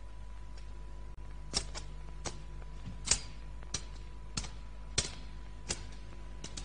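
Sharp taps, about ten at an uneven pace, roughly one every half second to second, over the steady low hum and hiss of an old film soundtrack.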